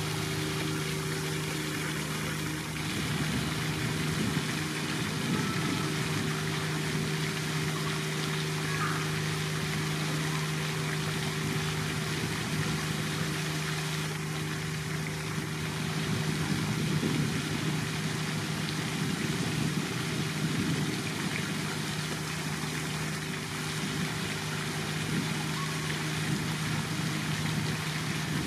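Steady wash of trickling, running pond water over a constant low hum.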